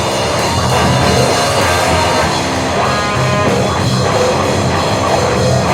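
Grunge/punk rock band playing a loud, steady instrumental passage on electric guitar and drum kit.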